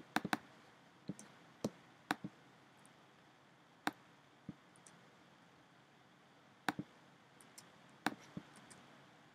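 Computer mouse and keyboard clicks, about a dozen short sharp ones at irregular intervals, some in quick pairs, over quiet room tone.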